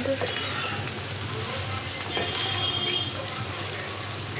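Strips of carrot, radish and green chilli sizzling steadily as they fry in a metal kadai, stirred with a spatula that scrapes against the pan now and then.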